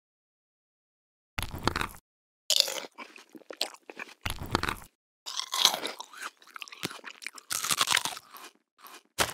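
Dubbed crunching sound effects in about six separate bursts, each stopping dead into silence between them.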